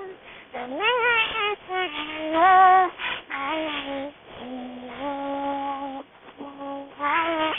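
Synthetic singing from a so-vits-svc voice-conversion model trained on cat meows: a Mandarin pop vocal line sung without words in a cat-like voice. It goes as a string of held notes joined by pitch slides, with short breaks between the phrases.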